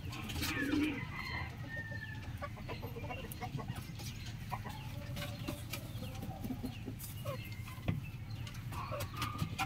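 Chickens clucking and calling in a flock, with a rooster's crow trailing off in the first second. A steady low hum lies underneath.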